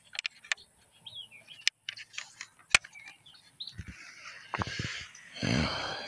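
Small bird chirps and a few sharp clicks in the first half, then a louder rustle of handling noise on the microphone near the end.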